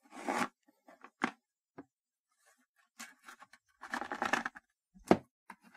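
Cardboard-and-plastic packaging being handled as a small cardboard box is worked open: short bursts of rustling and scraping, a few light clicks, and a sharp knock about five seconds in.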